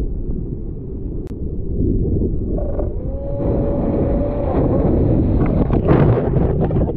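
Ocean water sloshing and rushing around a GoPro held at the water's surface as a slab wave breaks, ending with the camera pulled underwater. The rushing grows louder about two seconds in.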